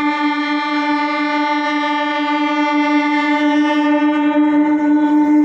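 MEMU electric train's horn held in one long, steady blast as the train approaches.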